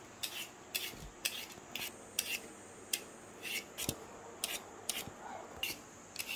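Vegetable peeler scraping the skin off a raw potato in quick short strokes, about two a second, each a brief rasp.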